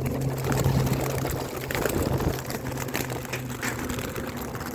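Strong wind buffeting and rumbling on the microphone, with sharp crackling gusts, over a steady low hum that dies away about four seconds in.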